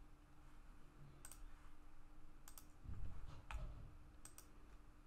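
Faint computer mouse button clicks, about four sharp clicks spaced roughly a second apart.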